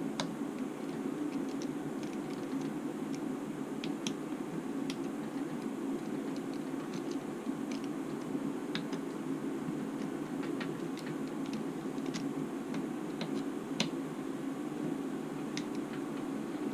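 Irregular light clicks and ticks of small tools and plastic parts being handled while working loose a radio-control helicopter's tail boom, over a steady low hum.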